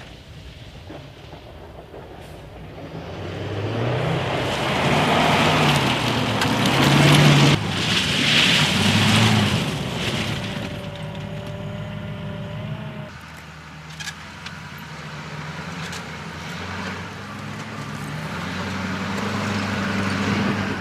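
Oshkosh JLTV's turbodiesel V8 revving up and down as the truck drives over a rough gravel and rock course, with gravel noise under the tyres. It is loudest a little before halfway, then settles to a steadier drone.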